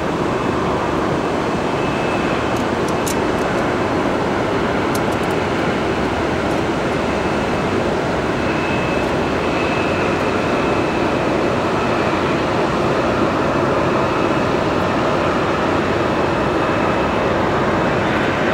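Airbus A300-600 freighter's jet engines on final approach: a steady rush with a faint high whine that comes and goes.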